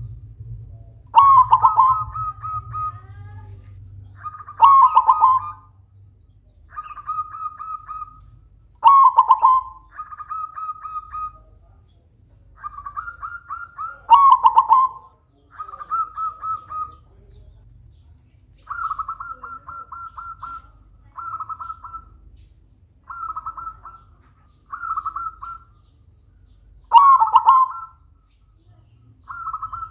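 Silver zebra dove (perkutut) calling over and over: bubbly, trilling coo phrases follow one another with short gaps. A few phrases are loud and open with a sharp note, and the others are softer.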